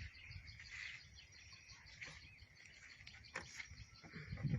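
Faint birds and insects chirping, with a couple of light knocks about two and three and a half seconds in.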